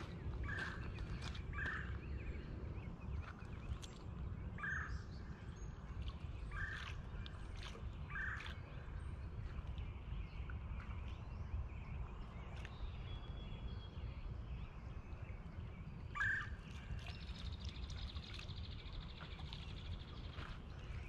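Outdoor ambience: a steady low rumble, a bird giving six short single calls spread over the stretch, the last one the loudest, and scattered faint clicks.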